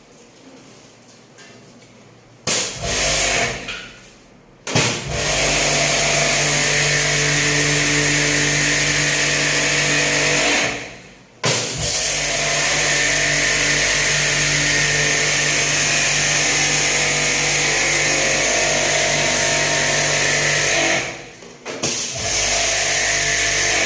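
Electric pressure washer running in bursts, its pump motor humming under the hiss of the water jet. It starts and stops several times: short bursts a few seconds in, then two long runs of about six and ten seconds, then more short bursts near the end.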